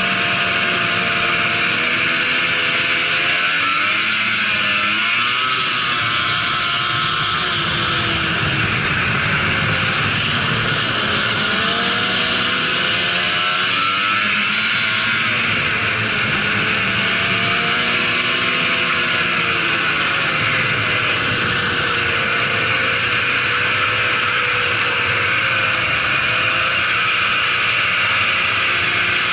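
Arctic Cat 800 triple snowmobile's three-cylinder two-stroke engine running under way, its pitch rising and falling as the throttle changes, over a steady hiss.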